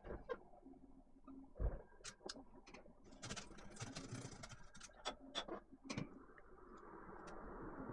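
Scattered light clicks and taps of laptop parts being handled, with a stretch of rustling about three seconds in.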